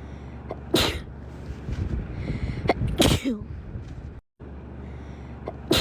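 A young woman sneezing loudly over and over, 'achoo' each time: a sharp burst that ends in a short falling 'choo'. The sneezes come about a second in, around three seconds in and again at the very end. The sound cuts out for a moment between repeats.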